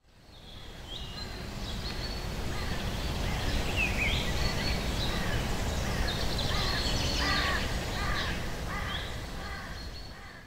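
Birds chirping and calling, many short repeated notes, over a steady low rumble of outdoor background noise; it fades in at the start.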